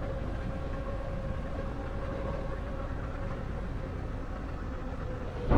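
Electric bike riding along pavement: the motor gives a steady, thin whine over a low rumble of tyres and air. A sudden, louder burst of noise starts right at the end.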